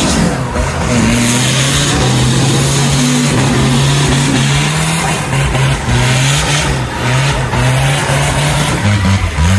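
Engine of a modified off-road 4x4 pickup revving hard under load as it works its way out of a mud pit, held at high revs with the pitch wavering up and down.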